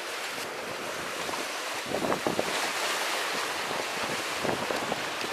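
Sea surf washing against the concrete tetrapods of a breakwater, with wind buffeting the microphone. A few short knocks or splashes stand out about two seconds in and again near the end.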